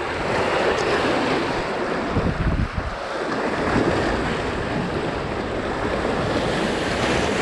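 Big waves splashing against a concrete-block breakwater, with strong wind on the microphone; a heavier low surge comes about two and a half seconds in.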